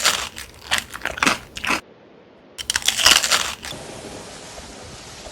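Crunchy food being bitten and chewed close to the microphone: a run of crunches in the first two seconds and another about three seconds in, then a steady hiss.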